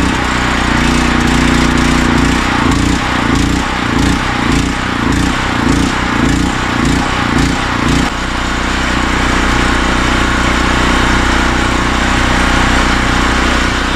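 A Generac 5939 (GP5500) portable gasoline generator's single-cylinder engine running loudly. Its speed wavers about twice a second for several seconds, then settles to a steady drone about eight seconds in.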